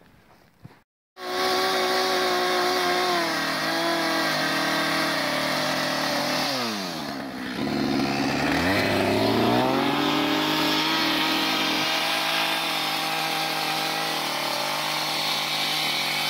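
Husqvarna XP two-stroke chainsaw running at high revs while trimming a notch in a log. It comes in abruptly about a second in; the engine speed dips for a couple of seconds near the middle, then picks back up.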